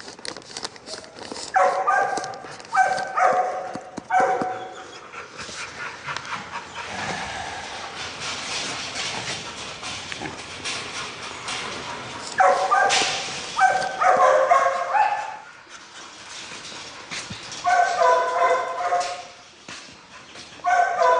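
Dogs barking and yelping in several short bouts, with a steady hiss between the bouts.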